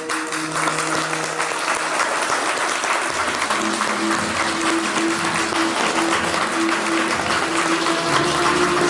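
Audience applauding: dense, steady clapping that breaks out suddenly, with music playing underneath.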